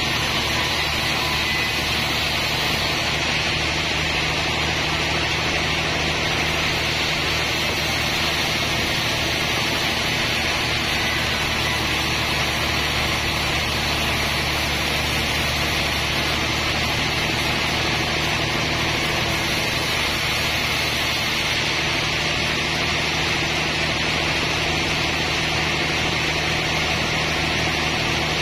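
Large sawmill band saw sawing lengthwise through a trembesi (rain tree) log. Its steady hiss of cutting runs over the continuous hum of the mill's drive.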